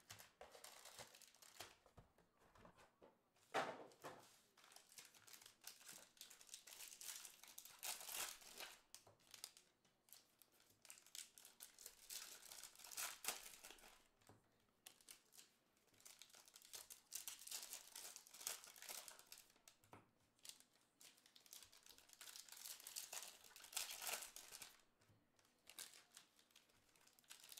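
Faint plastic wrapping on a box of baseball cards and its packs being torn open and crinkled, in short irregular bursts.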